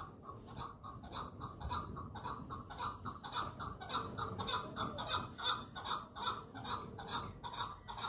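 A bird calling in a rapid, even series of short notes, about four to five a second, in the manner of a hen clucking.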